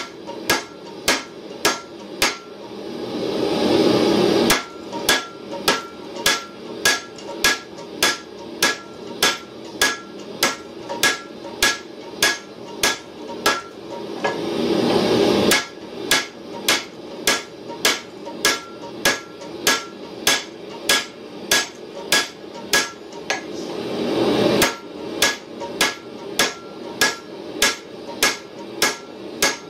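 Heavy hammer blows on a red-hot steel tow ball held in tongs on an anvil, hot-forging it into a swage block. The strikes come in a steady rhythm of just under two a second, each with a short metallic ring. The hammering stops three times, and each time a rushing noise swells and then cuts off sharply.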